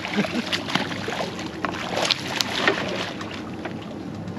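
Hooked barracuda thrashing at the surface beside the boat: a run of short, sharp splashes over steady wind and water noise, loudest a little after halfway through.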